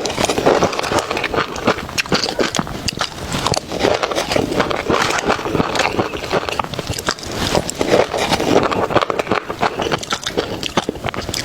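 Close-up eating sounds: chewing with a dense, continuous run of small clicks.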